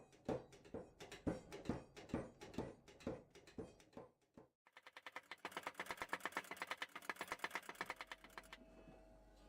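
Hammer blows on hot steel at the anvil, steady at about two to three a second while the chisel blank is forged. After a break about halfway through comes a much faster run of rhythmic strikes, around ten a second, which gives way to a low steady hum near the end.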